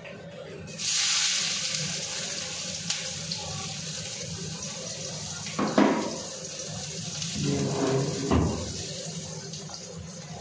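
Sliced onions tipped into hot oil in an aluminium kadai start sizzling about a second in, loud at first and easing off gradually. A sharp clatter comes near the middle, and a brief voice and a clunk come later.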